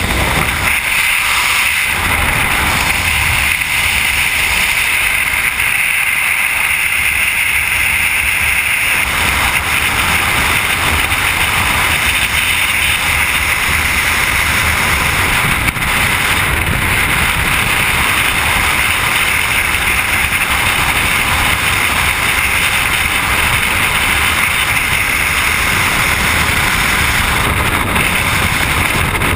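Loud, steady rush of freefall wind buffeting a skydiver's helmet-mounted camera microphone, with a low rumble under a hissing band.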